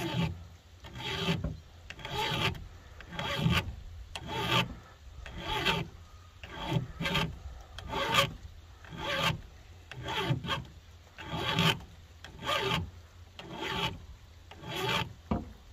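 Flat file rasping across the rakers (depth gauges) of a chainsaw chain, filing them down in steady back-and-forth strokes about one a second.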